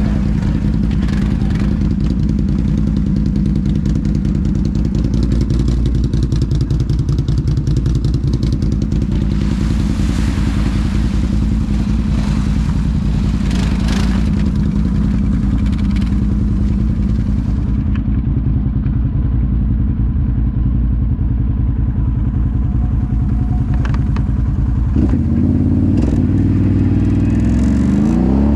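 ATV engine running steadily under way, its pitch starting to rise and fall near the end as the throttle changes.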